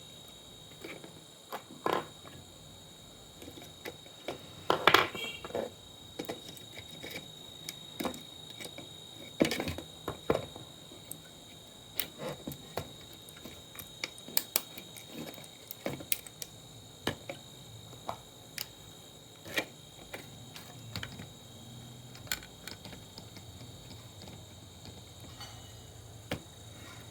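Irregular clicks, taps and small knocks of tools and parts being handled while an old monitor is taken apart, with a few louder knocks early on. A faint steady high-pitched whine runs underneath.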